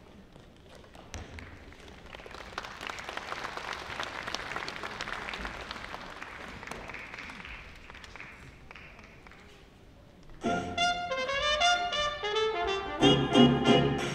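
An audience applauding, swelling and then fading. About ten seconds in, loud brass-led music with trumpet and trombone starts up suddenly for a stage dance number.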